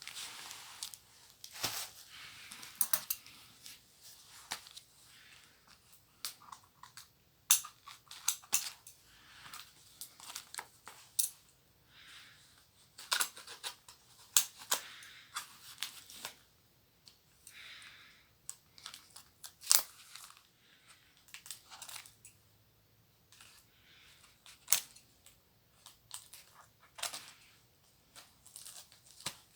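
Paper packaging of a mailed book parcel being handled, torn and crinkled by hand, in an irregular run of rustles, rips and sharp clicks.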